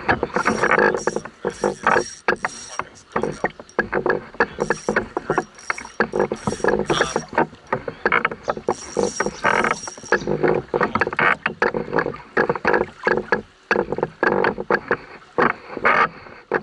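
Rapid, irregular knocking and rattling of fishing gear against a canoe while a hooked fish is being fought.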